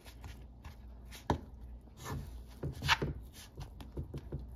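A metal spoon scraping and tapping against a nonstick frying pan in irregular strokes as a warm sesame-and-jaggery mixture is broken into small lumps. The sharpest clicks come about a second and three seconds in.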